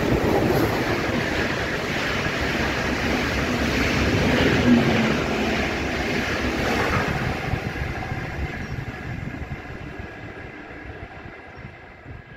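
A train passing close beneath, with its wheels rumbling and clattering on the rails. It is loudest in the first half and then fades steadily as it runs away into the distance.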